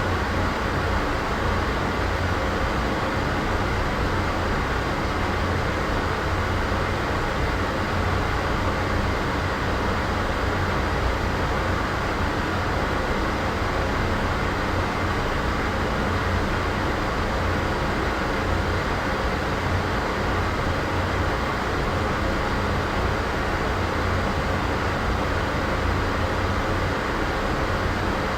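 Steady, unchanging background noise with a low rumble underneath, a continuous ambience bed with no distinct events.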